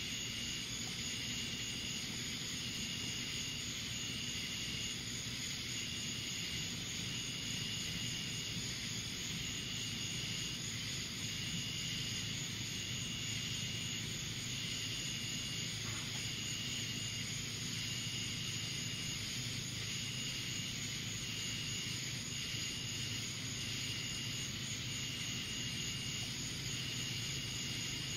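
Steady outdoor night ambience: a constant hiss and low hum, with a short high chirp repeating about every second and a half.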